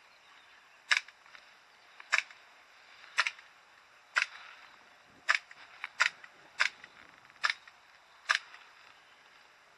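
Airsoft gun firing single semi-automatic shots: about nine sharp cracks spaced roughly a second apart, coming a little quicker around the middle.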